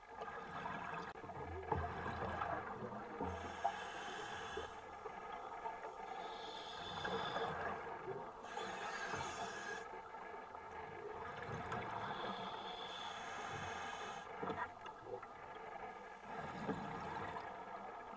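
Underwater sound of a scuba diver breathing through a regulator: cycles of hissing breath and bubbling exhalation, a breath every few seconds, over a steady hum.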